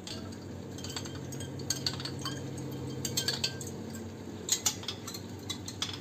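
A metal spoon stirring iced drinks in glasses, clinking against the glass and the ice cubes in a string of irregular clinks, a few of them louder.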